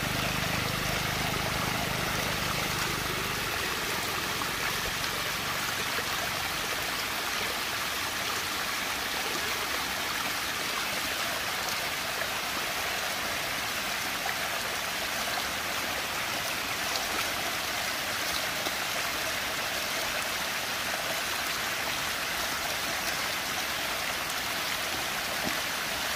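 Steady rushing and gurgling of water swirling down into a whirlpool vortex. A low rumble underneath stops a few seconds in.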